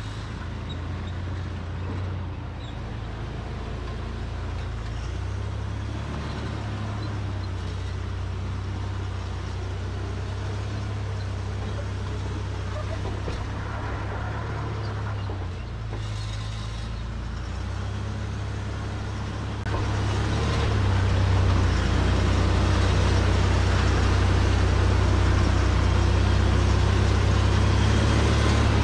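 Toyota Land Cruiser FZJ80's 4.5-litre straight-six engine running at low revs under load as the truck crawls up a steep rock climb, a steady low drone that gets louder about two-thirds of the way through.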